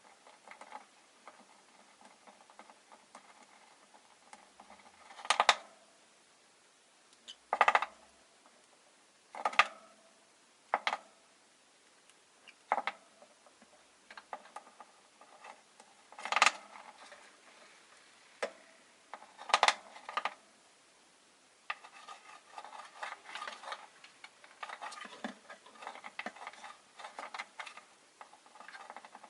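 Rosy-faced lovebirds in their wire cage making short, sharp sounds: about seven loud ones a second or two apart, then from about two-thirds in a dense run of quick, quieter clicking.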